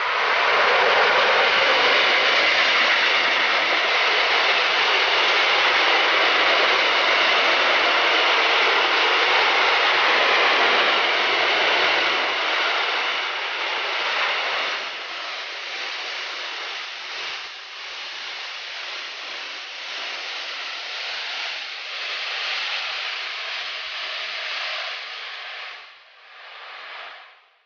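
Electric locomotive and a long freight train of open box wagons passing close by. A loud, even rolling noise of wheels on rails builds suddenly as the locomotive arrives, then eases after about twelve seconds to a steadier, quieter rumble as the wagons keep rolling past.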